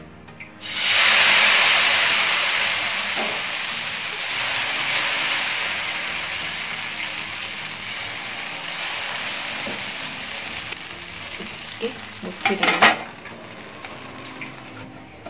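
Thin vegetable dosa batter hitting a hot oiled non-stick tawa: a sudden loud sizzle about a second in, settling into a steady hiss that slowly fades as the lacy dosa cooks. Near the end, a few sharp clatters, and the sizzle drops away.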